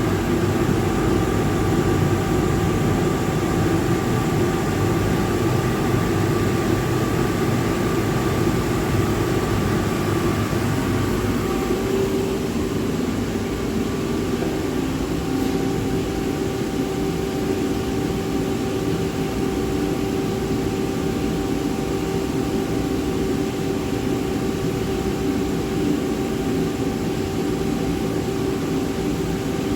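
Commercial boiler burner firing steadily: a loud, even roar with steady tones running through it. About twelve seconds in, the roar and its tones shift as the burner is driven up to high fire.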